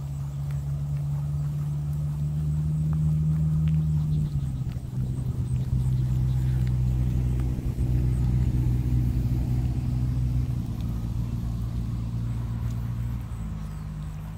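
A motor vehicle's engine running close by, a steady low hum that grows louder and then eases off. Its pitch drops about four seconds in and rises again near the end.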